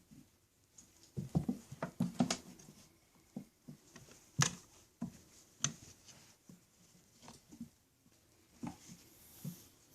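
Small pets scrambling and playing on a carpeted kitty condo: irregular thumps, knocks and claw scratches, with a burst of thumps between one and two and a half seconds in and sharp knocks around four and a half and five and a half seconds.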